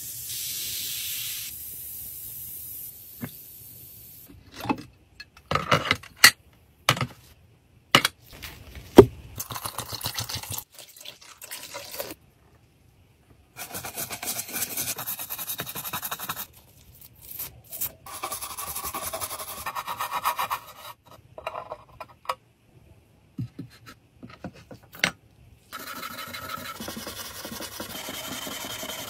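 Hand restoration of a rusted antique jewelry box: a hiss of powder pouring into its water bath, then a run of sharp clicks and knocks, then scraping of the rusty surface in soapy foam with a flat tool and rubbing of the cleaned box by gloved hands.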